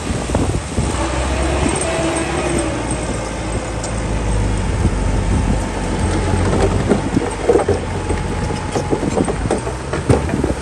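Heavy diesel machinery running with a steady low rumble. A faint whine rises and falls in the first few seconds, and metal clanks and knocks come from about six seconds in.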